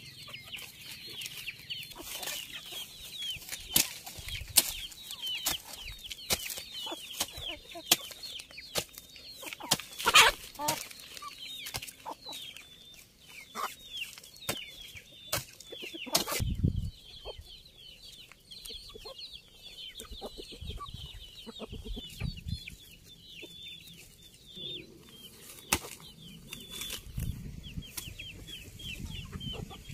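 Hens clucking close by over a constant chatter of quick high chirps, with scattered sharp knocks and scrapes as soil is pressed in around a seedling by hand. Near the end a hoe chops into the soil with dull thuds.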